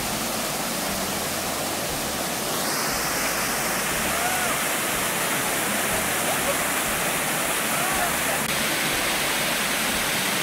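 Steady rush of a small waterfall pouring over boulders into a rocky stream pool.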